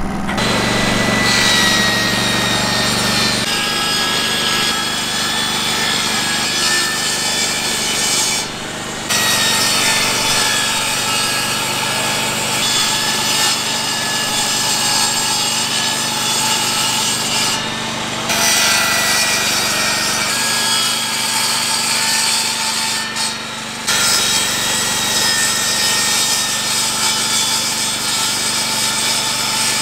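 Power saw running and cutting plywood in long continuous runs, with three short pauses.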